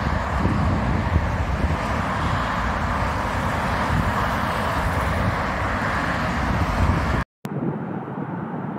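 Motorway traffic: cars and a box truck passing at speed, a steady rush of tyre and engine noise with wind buffeting the microphone. About seven seconds in it cuts off for a moment and gives way to a quieter, duller outdoor background with wind rumble.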